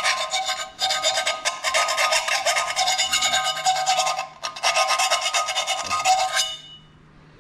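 Deburring a freshly drilled hole in a metal ashtray: rapid rasping, scraping strokes of a tool against the hole's sharp edges, with the thin metal ringing, in a few runs with brief breaks, stopping near the end.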